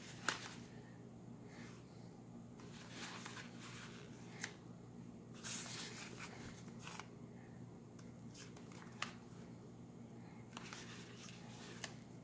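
Faint handling noise from a Logitech G933 wireless headset being turned over in the hands: plastic rubbing and rustling, with a few light clicks and taps spread through, over a steady low hum.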